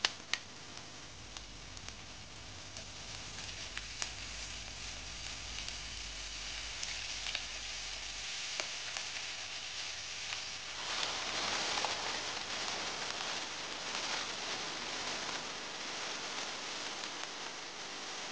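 Marinated beef strips and sliced onions sizzling in a hot nonstick frying pan, opening with a few sharp knocks as the meat is scraped in from a bowl with a spatula. The sizzle grows louder about halfway through.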